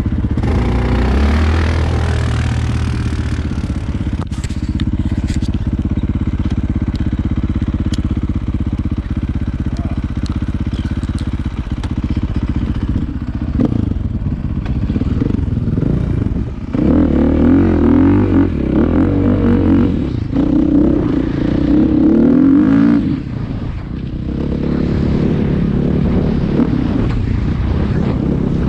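An off-road vehicle's engine running hard while riding, its pitch stepping up and down with the throttle. It is loudest in a stretch past the middle, then eases briefly.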